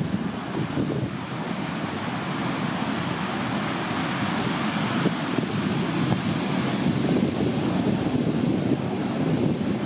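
Heavy surf breaking and washing along the shore in a steady rush, with wind buffeting the microphone.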